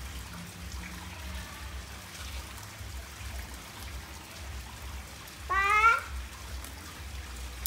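Water trickling steadily into a fish pond over a low hum. About five and a half seconds in, a child's voice gives one short, high-pitched call that rises in pitch.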